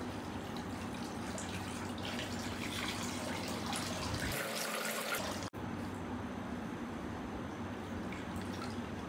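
Liquid poured from a steel bowl into a straining cloth and dripping and splashing through it into a steel pot, heaviest in the middle seconds.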